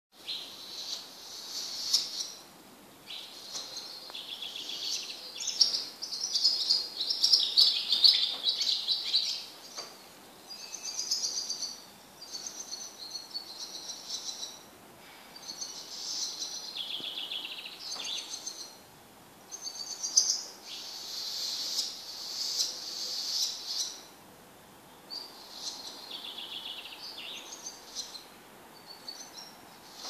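Songbirds singing: high, rapid twittering and trilled phrases a second or a few seconds long, separated by short pauses, loudest between about five and ten seconds in.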